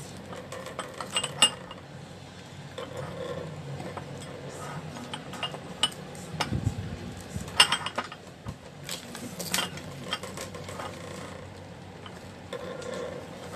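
Eating sounds: a metal spoon clinking and scraping on a plate in scattered sharp clicks, the loudest about a second and a half in and twice more around seven to ten seconds in, with chewing and mouth sounds between.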